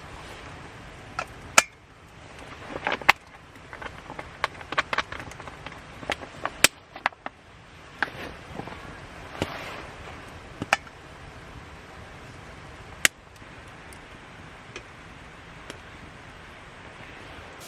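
Campfire crackling: irregular sharp snaps and pops over a steady hiss, with a few much louder cracks.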